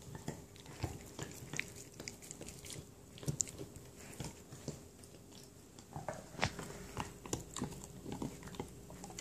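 Dogs chewing on elk antler: irregular clicks and crunches of teeth on hard antler, a little louder and denser in the second half.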